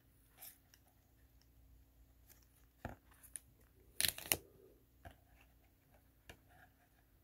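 Football trading cards handled by hand: faint flicks and slides of card stock, the loudest a quick double flick about four seconds in.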